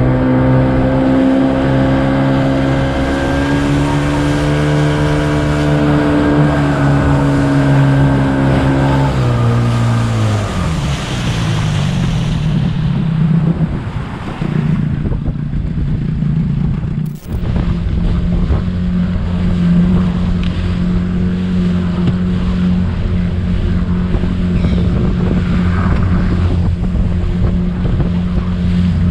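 Tiller-steered outboard motor driving the boat at speed, its pitch falling as it is throttled back about ten seconds in, then running steadily at lower revs under the noise of wind and water.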